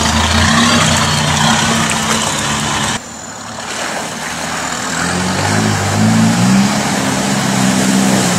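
Off-road 4x4 engines working through deep mud. A steady engine note with a lot of hiss cuts off suddenly about three seconds in, and a second SUV's engine comes in quieter, then revs up and grows louder as it climbs toward the listener.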